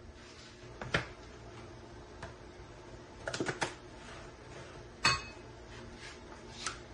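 Kitchen dishes and utensils clinking and knocking in a few scattered strikes: one about a second in, a quick rattle of several a little after three seconds, the loudest, a single strike with a brief metallic ring, about five seconds in, and one more near the end.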